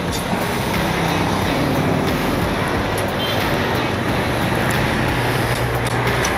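Steady road traffic noise, with vehicle engines running.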